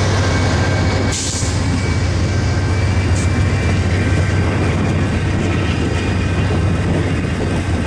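Amtrak passenger train of double-deck Superliner cars rolling past close by: a steady rumble of wheels on the rails, with a brief hiss about a second in.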